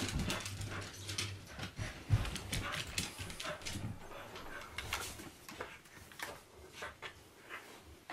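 A beagle scrabbling and leaping at a hanging cloth costume: quick irregular clicks and scuffles of paws on a hardwood floor and couch, with the cloth rustling, and a sharp knock about two seconds in.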